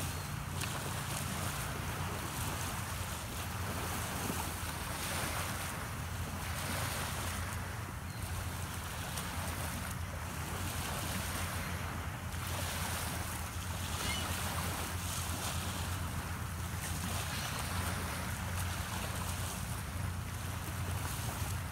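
Small waves washing onto the shore, the wash swelling and fading about every two seconds, with wind rumbling on the microphone.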